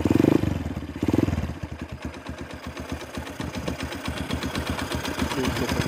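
Honda XR200's air-cooled single-cylinder four-stroke engine running, blipped louder twice near the start and then settling to a steady idle.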